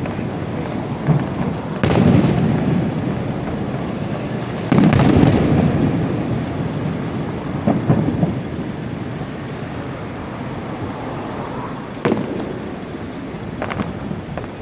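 Aerial fireworks shells bursting in the distance: each sharp bang is followed by a long, low rolling rumble. The biggest bursts come about two and five seconds in, with smaller ones near eight, twelve and fourteen seconds.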